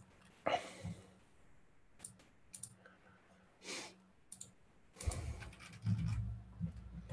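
Scattered clicks of a computer mouse and keyboard, with a couple of breaths. Near the end comes a stretch of low bumps and rumble.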